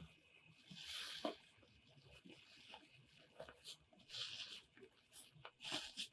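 Near silence with a few faint, brief soft scrapes and rustles, about one second in, after four seconds and near the end.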